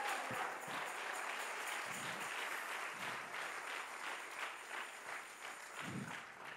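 Congregation applauding in response to a call to praise, the clapping slowly dying away.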